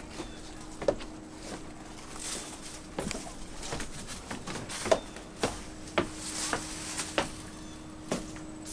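Footsteps on wooden stairs and deck boards, with uneven knocks about one or two a second, over a faint steady hum.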